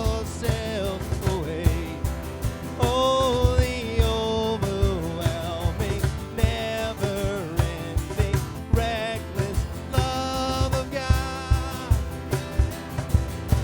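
Live worship band music: acoustic guitar strumming over a steady cajon beat, with a voice singing a melody.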